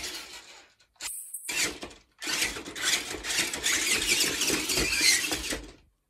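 Battery-powered toy RC monster truck's electric motor and gears running as it drives over carpet, in three spurts: two short ones in the first two seconds, then a longer run of about three and a half seconds that cuts off just before the end.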